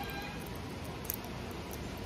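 Handling of a Seiko 5 Sports watch's metal link bracelet, with one sharp, light metallic click about halfway through, over steady background noise.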